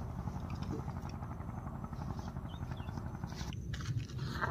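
Steady low rumble of a vehicle running, with a brief louder sound near the end.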